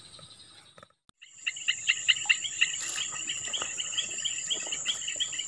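Insects calling: a steady high-pitched buzz over a rhythmic chirping at about three to four chirps a second. It starts about a second in, after a brief near silence.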